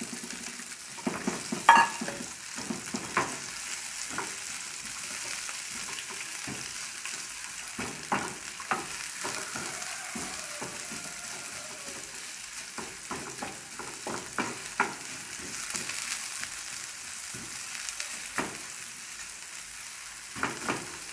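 Sliced onion rings and garlic sizzling in hot olive oil in an aluminium frying pan, with a steady frying hiss. A wooden spoon stirs them, knocking and scraping against the pan at irregular moments, loudest a little under two seconds in.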